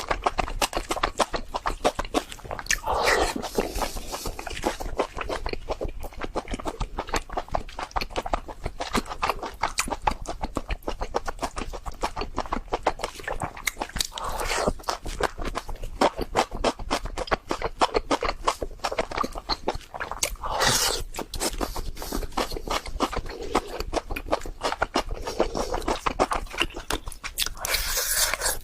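Close-miked chewing of meat: a dense, continuous run of wet mouth clicks and smacks, with a few louder, longer bites or slurps now and then.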